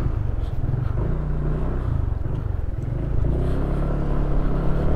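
Motorcycle engine running steadily under way, a low even hum.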